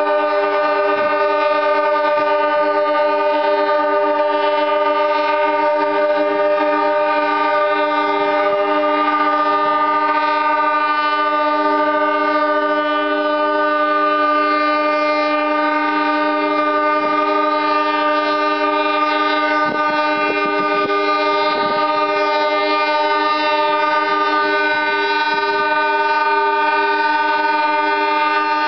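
Boat horns sounding together in one long, steady chord of several pitches, held without a break.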